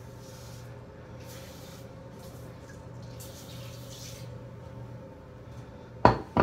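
A bathtub being scrubbed by hand in several short swishing strokes over a steady low hum, then two sharp knocks about six seconds in as an aerosol cleaner can is set down on the tub's edge.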